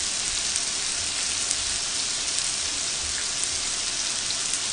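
Pork-belly-wrapped shrimp rolls and mushroom slices sizzling steadily on a hot grill plate, a continuous frying hiss with faint scattered crackles.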